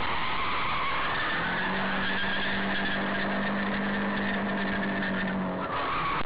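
A car being driven hard, heard from inside: loud, steady road and engine noise. About a second and a half in, a steady engine tone joins and holds until shortly before the end.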